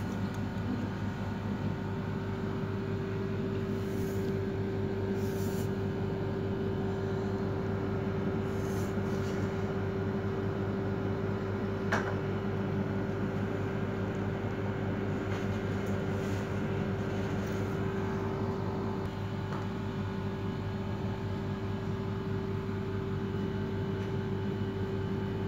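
A steady mechanical hum with a constant low drone and an even tone above it, unchanging throughout; a single short click about halfway through.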